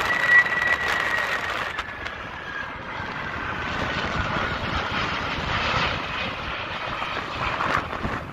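Twin-engine jet airliner passing low overhead on landing approach with its gear down: a high engine whine that slowly falls in pitch over the first few seconds, then a steady rushing jet noise that swells and eases off.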